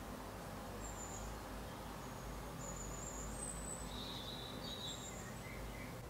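Steady faint background noise with a few short, high bird chirps scattered through it.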